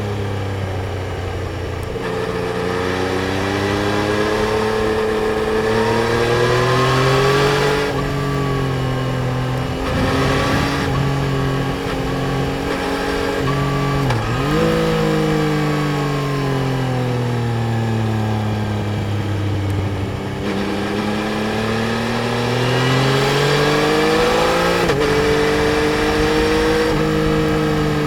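Yamaha Tracer 900 GT's three-cylinder engine under way, its revs climbing and falling as the motorcycle accelerates and eases off. A few times the pitch drops sharply and climbs again, as at a gear change.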